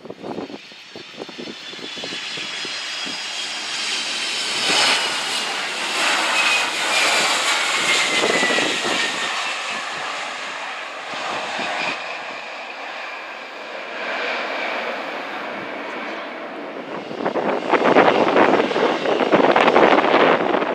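Jet engines of a Boeing 767-300ER landing. A whine falls steadily in pitch as the airliner passes on final approach, and the engine noise swells again, loudest, in the last few seconds as it rolls along the runway.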